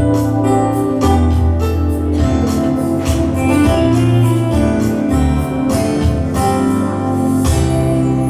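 Instrumental music on an electronic keyboard: sustained organ-like chords over steady bass notes, with no singing.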